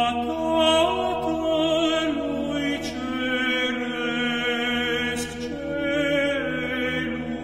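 Church chant: voices sing long, held notes with a slowly moving, wavering melody over a steady low drone.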